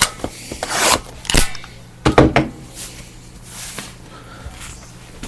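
Handling noise in a small room: a quick series of knocks, scrapes and rubs as objects are moved about, loudest in the first two and a half seconds and fainter after, over a steady low electrical hum.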